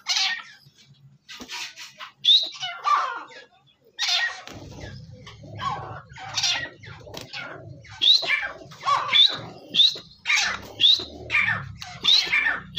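Grey francolin (teetar) calling: a long run of loud, sharp notes, each with a quick rising whistle, coming about two a second in the second half.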